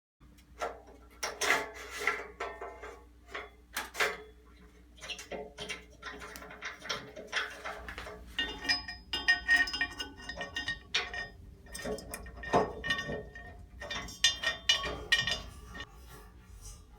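Irregular clinks, clicks and knocks of metal treadmill parts and hardware being handled during assembly, denser in the second half.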